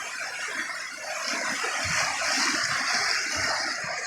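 Rain-swollen river rushing, a steady hiss of moving water that grows a little louder about a second in.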